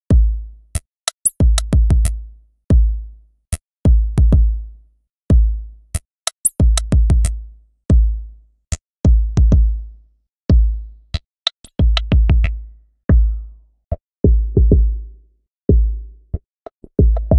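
Electronic drum loop playing: deep kick drums with long low decays and sharp, crisp high clicks in a syncopated pattern, the loop running through a low-pass filter.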